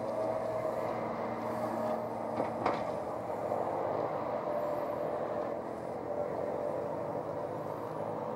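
Steady low mechanical rumble with a faint hum, like distant road traffic, slowly fading. Two sharp clicks come about two and a half seconds in.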